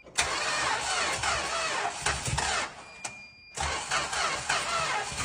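1969 Chrysler Newport's 383 V8 being cranked over by the starter with the throttle held wide open, in two attempts with a short break between, without starting. The owners think the engine has serious internal problems.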